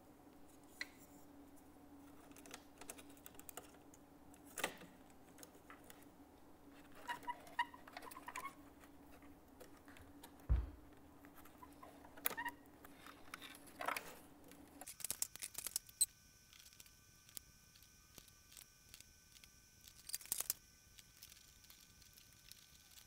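Small irregular clicks and taps of a fader and its ribbon-cable connector being handled and fitted into an Avid SC48 mixing console's fader bay, with one dull thump about halfway through. A faint steady hum stops about two-thirds of the way in.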